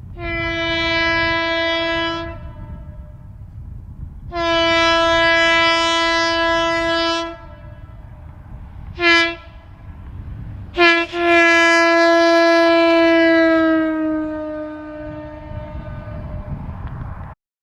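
Train air horn sounding two long blasts, a short one, then a final long blast whose pitch sags as it dies away: the grade-crossing pattern. A low rumble runs underneath.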